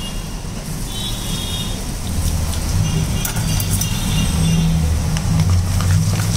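Steady low rumble of a running engine, growing louder about two seconds in.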